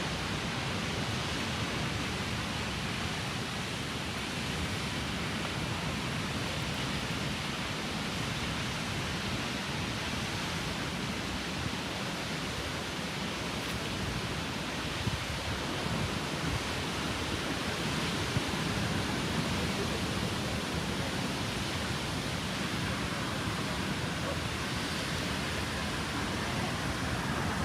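Waterfall's falling water: a steady, even rushing.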